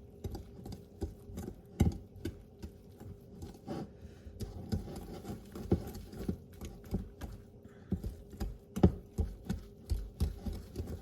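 Thick cornmeal batter being stirred in a bowl, the utensil clicking and tapping against the bowl in quick, irregular strokes.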